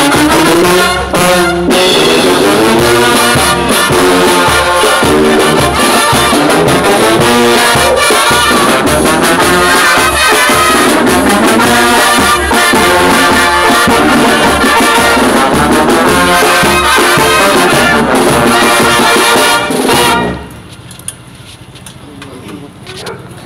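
Mexican brass band of sousaphones, trumpets and trombones with snare and bass drum playing a tune over a steady beat. The music stops suddenly about 20 seconds in, leaving much quieter background noise.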